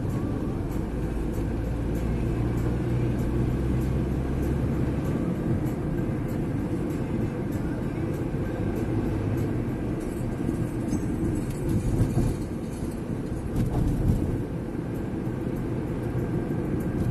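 Road and engine noise heard inside a moving car's cabin: a steady low rumble of tyres and engine, with a couple of brief louder bumps partway through.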